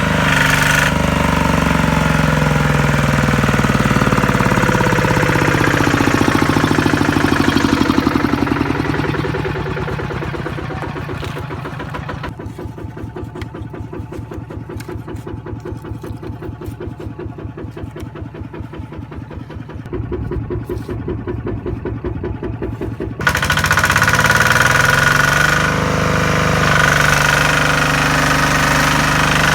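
Kubota RT155 single-cylinder diesel engine of a farm truck running with a steady knocking beat. From about eight seconds in it slows to a quieter, slower idle with each firing stroke heard separately. About three-quarters through it suddenly picks back up to its louder running speed.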